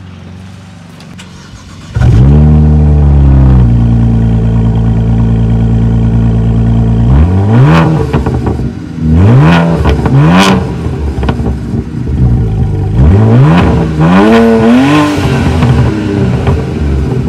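BMW E92 335i turbocharged inline-six on its stock downpipes, started up about two seconds in: it flares, settles to a steady idle, then is blipped in short revs, three in the middle and a couple more near the end, before dropping back to idle.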